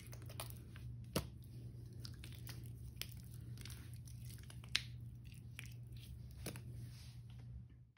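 Wet squishing and crackling of hands squeezing and kneading sponges soaked in thick Ajax cleanser paste: many small wet clicks and pops, with two sharper pops, about a second in and just before the five-second mark. The sound cuts off abruptly at the very end.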